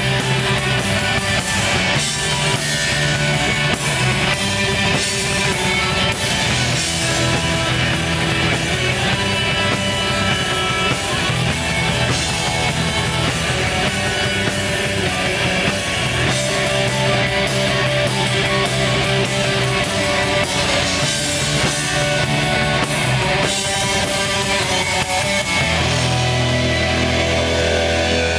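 Live black metal played loud: distorted electric guitars over rapid, dense drumming with cymbals. Near the end the drums stop and a held low chord rings on.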